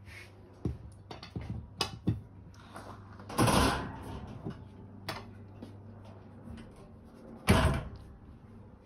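Folding attic-ladder hatch being pulled open with a pole: a few short clicks and knocks as the pole catches the panel, then a loud rattling thud about three and a half seconds in as the hatch door swings down, and another loud knock near the end as the panel drops to hang fully open.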